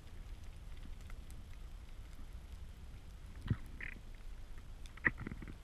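Underwater ambience: a steady low rumble of water against the microphone, with two sharp knocks about three and a half and five seconds in, the second louder.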